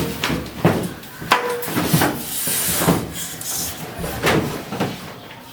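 Irregular knocks and thuds, with a stretch of scraping and rustling near the middle: a washing machine's shipping packaging being handled and taken apart.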